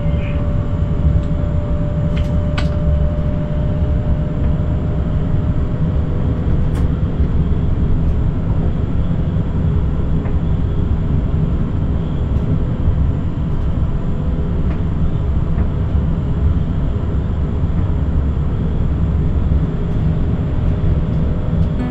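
Forchbahn light-rail train running between stops, heard from the driver's cab: a steady low rumble of wheels on track and running gear. A steady tone fades out over the first few seconds, and a couple of sharp clicks come about two seconds in.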